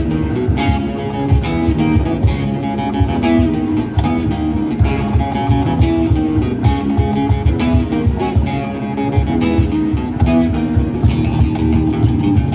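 Acoustic guitar music: plucked and strummed guitar notes over a steady beat in the bass.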